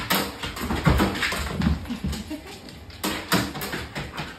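Dogs scrambling on and around a home treadmill: a run of knocks and clicks from paws on the treadmill deck and wooden floor, with heavier thumps about a second in and again near three seconds, and some dog vocal sounds mixed in.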